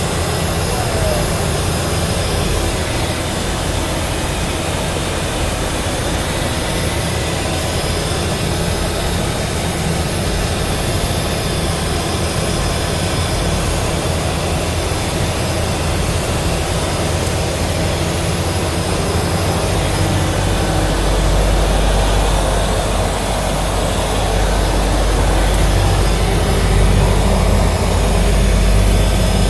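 Cessna Grand Caravan's single Pratt & Whitney PT6A turboprop engine and propeller running steadily while taxiing, heard inside the cockpit. The low rumble grows louder about two-thirds of the way through.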